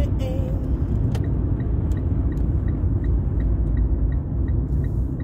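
Steady engine and road rumble inside a moving car's cabin. About a second in there is a click, and then the turn signal ticks evenly, about three ticks a second.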